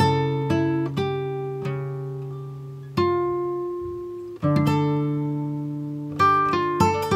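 Background music of plucked string notes and chords, each struck and left to ring and fade, with fresh chords about three, four and a half, and six seconds in.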